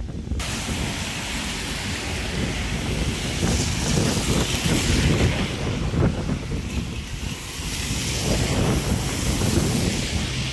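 Wind buffeting the phone's microphone over a steady hiss of rain and car tyres on a wet, flooded road. The hiss swells about four seconds in and again near the end.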